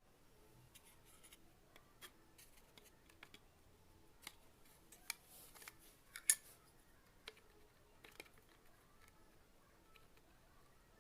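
Faint, scattered clicks and snips of small hand tools at work, the sharpest about six seconds in.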